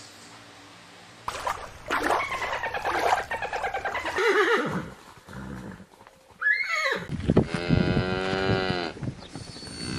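A string of animal calls, the last a long, low cow moo from about seven to nine seconds in, its pitch falling slightly. Before it come a busy run of calls with clicks and a single call that rises and falls.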